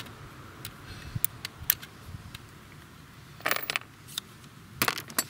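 Irregular sharp metallic clicks and clinks of hand tools and small screws being worked in a car's engine bay, with two short clusters of clinks about three and a half and five seconds in.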